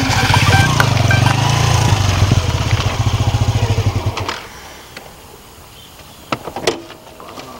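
Motorcycle engine running steadily with an even low pulse, then switched off about four seconds in. A couple of short knocks follow near the end.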